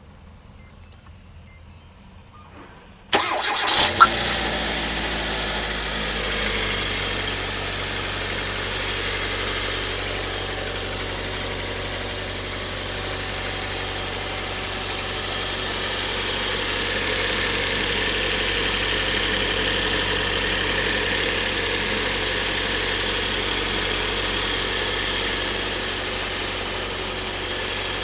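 Kia Cerato engine cold-started: after a few seconds of quiet the starter cranks briefly and the engine catches, then settles into a steady idle. The owner is recording it for an engine knock.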